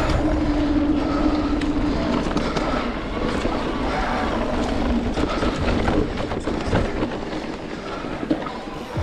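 Giant Reign E+ electric mountain bike ridden over rough trail: a continuous rattle and clatter of the bike and its knobby tyres over the ground, with many small knocks, over a steady motor drone that is clearest in the first couple of seconds.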